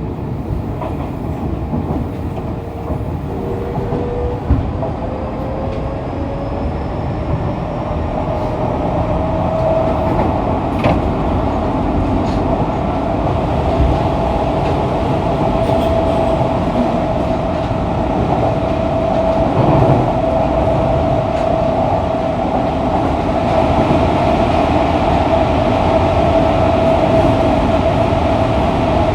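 Fukuoka City Subway 2000 series train with a Hitachi late-type GTO-VVVF inverter, heard from the car floor under way. A tone rises in pitch over about the first ten seconds and then holds steady, over the rumble of wheels on track.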